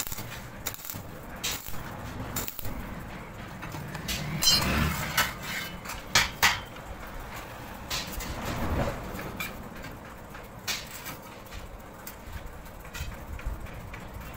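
Steel pieces clanking and knocking as welded square steel tubes and flat-bar rings are handled: a series of sharp metal knocks, the loudest about five and six seconds in.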